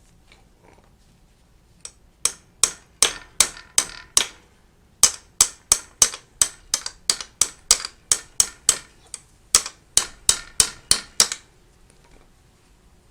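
A tool striking metal repeatedly: about two dozen sharp, briefly ringing taps at two to three a second, with a short break after the first six.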